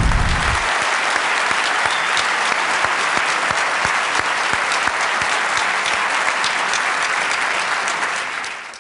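A large audience applauding steadily, many hands clapping at once. It fades and cuts off right at the end.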